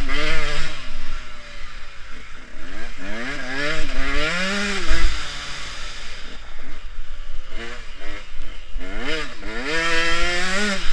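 Motocross dirt bike engine ridden hard, revving up and backing off several times as it accelerates along straights and slows for corners.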